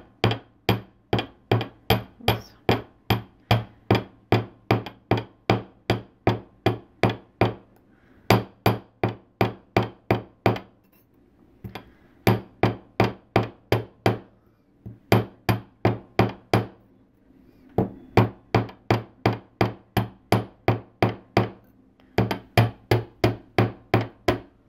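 A jeweler's chasing hammer, its ball face tapping copper wire on a steel bench block to hammer-texture a scalloped edge. Light, even taps at about three a second come in runs with brief pauses between them, and each tap rings briefly.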